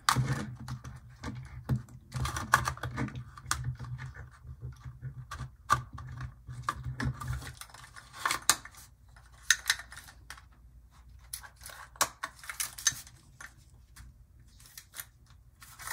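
Irregular plastic clicks and taps as the body shell of an HO-scale model diesel locomotive is handled and pressed onto its chassis, which doesn't seat firmly. A low steady hum runs under the clicks and cuts off about halfway through.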